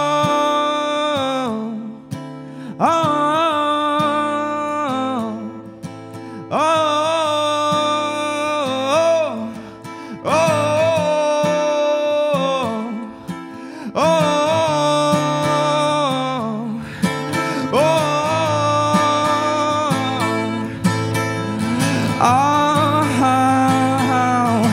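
Man singing a run of wordless "oh" phrases to a strummed acoustic guitar: long held notes that waver, each two to three seconds, with short breaks between them.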